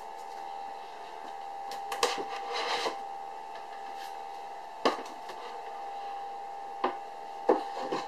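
Folders and papers rustling as they are slid into a wooden chart-table compartment, then a few sharp wooden knocks as the chart-table lid is shut and its small hatch handled, over a faint steady hum.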